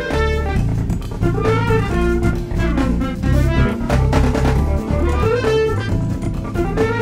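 Live modern jazz groove: trumpet playing the lead line over electric bass, hollow-body electric guitar and drum kit.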